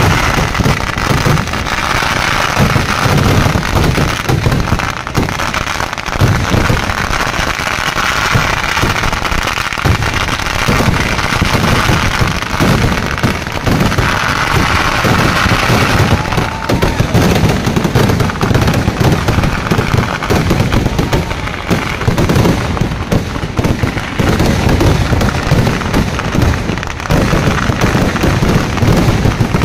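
A dense fireworks barrage: shells and firecrackers bursting one on top of another with no break, a constant rapid rattle of bangs and crackle.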